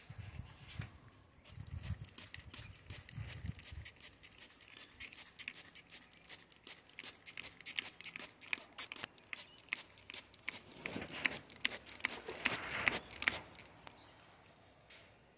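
An Amazon parrot chewing on a wooden perch with its beak: a dense, irregular run of dry clicks and crunches that stops about two seconds before the end.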